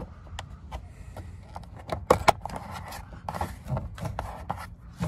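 Plastic door-trim cover on a Fiat 500 door panel being pressed and snapped into its clips: a run of clicks and taps with plastic rubbing between them, the two loudest snaps a little over two seconds in.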